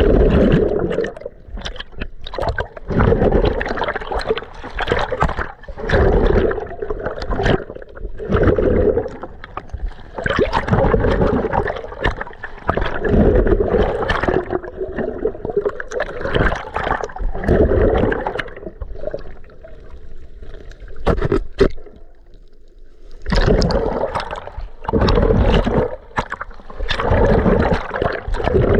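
Muffled water sound from a camera held underwater while snorkeling: water churning and gurgling in surges about every two to three seconds, with a quieter stretch about three quarters through.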